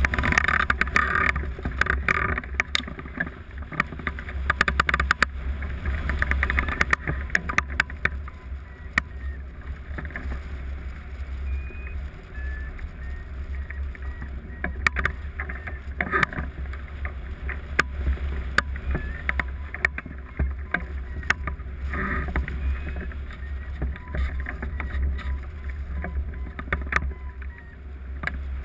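Airflow rushing over a hang glider's wing-mounted camera in flight: a steady low buffeting rumble with many sharp clicks and rattles, a little louder in the first few seconds.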